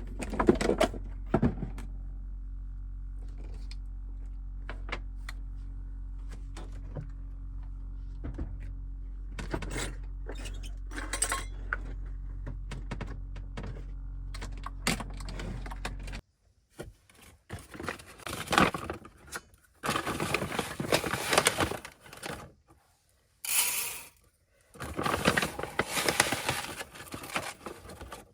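Small objects being handled: scattered clicks and knocks over a steady low hum. About 16 seconds in the hum stops suddenly, and repeated bursts of rustling and scraping follow.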